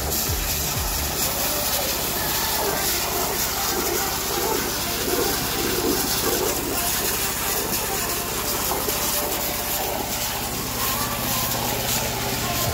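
Small engine-driven water pump (motobomba) running steadily while the pressurised water jet from its hose blasts into a muddy earth bank: a continuous hiss and splash of water over the engine's low hum.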